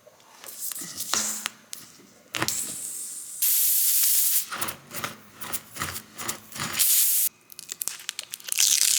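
Air hissing out of a tyre puncture in short bursts as a repair tool is worked in the hole, the longest burst about a second long near the middle, with tool clicks and rattles between.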